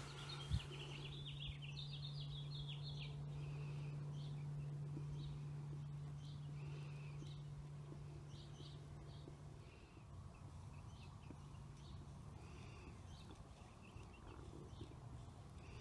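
Small birds chirping over and over, short high calls all through, over a steady low hum that drops off about ten seconds in.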